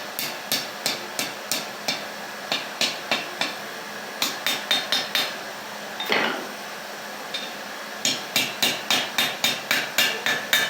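Blacksmith's hammer striking a hot metal rod on an anvil in runs of ringing blows, about three a second, curling the rod into a scroll. A brief scraping sound comes about six seconds in, then a pause of a couple of seconds before a quicker run of blows.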